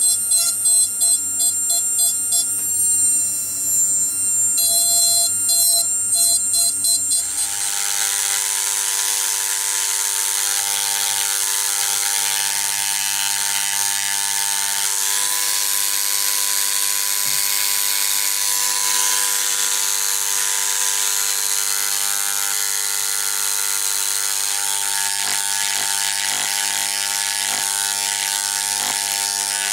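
Small electric jeweller's power tool running steadily with a motor hum and a high whir as it works a rivet head on a silver piece. About seven seconds in the sound changes to a rougher, hissier steady buzz that runs on.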